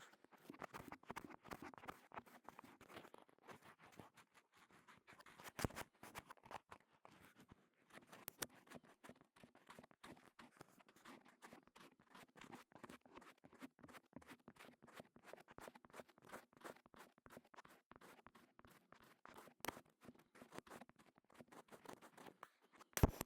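Faint, close-up crackly scratching and rubbing with many tiny clicks at the ear of a KU100 dummy-head microphone, an ASMR ear-cleaning style trigger. A louder click comes about six seconds in, and a sharp one just before the end.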